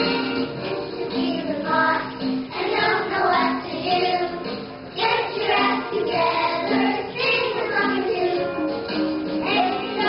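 A group of young children singing a song together over accompaniment music.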